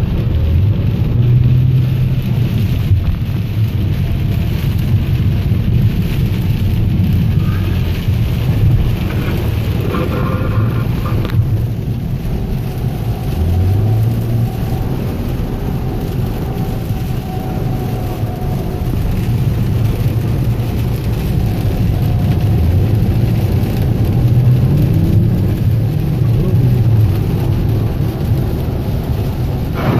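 Car cabin noise while driving through heavy rain: engine and tyres on the wet road with rain on the car, a steady rushing rumble. The engine note rises several times as the car accelerates.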